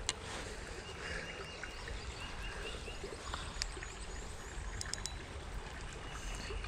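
Faint creek ambience: a steady wash of flowing water, with small bird chirps in the first few seconds and a few light clicks.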